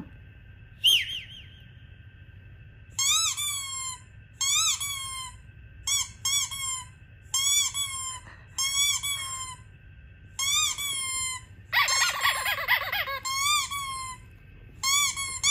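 Recorded squeaks of a dog's squeaky toy played from a phone's speaker, mostly in pairs, each squeak rising then falling in pitch, with a fast run of squeaking about twelve seconds in. A short whistle sounds about a second in, before the squeaking starts.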